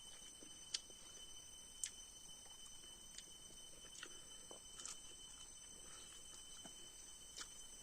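Near silence with a steady faint high whine and a few soft, sharp clicks scattered through it.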